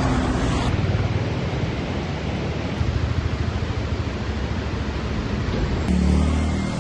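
Steady rush of a waterfall's falling water, an even hiss across all pitches, with a low rumble swelling near the end.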